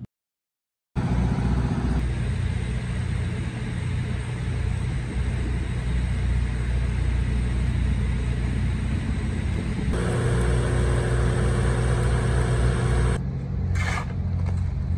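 After a second of silence, a steady low engine rumble from construction-site machinery, which shifts abruptly about ten seconds in and again near the end as the shots change.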